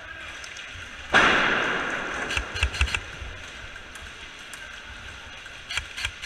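A sudden loud hissing burst about a second in that fades away over a second and a half, then a few sharp snaps, and near the end a quick run of snaps at about four or five a second, like airsoft guns firing.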